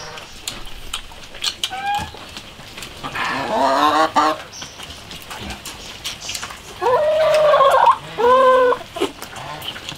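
Domestic poultry calling from the yard: several separate calls, a short one about two seconds in, a longer warbling one around three to four seconds, and two more near the end, between light clicks.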